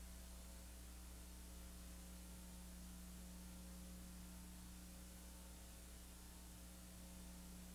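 Near silence: a steady low electrical hum with faint hiss.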